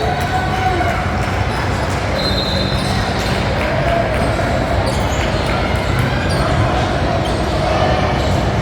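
Basketball bouncing on a gym floor amid the steady din of a game, with players and spectators talking in the background.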